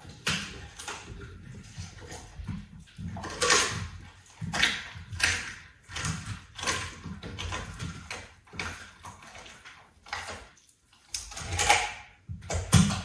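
A leopard chewing and gnawing on a chunk of raw meat. The chewing sounds come in uneven bursts, one or two a second, with a few louder bites among them.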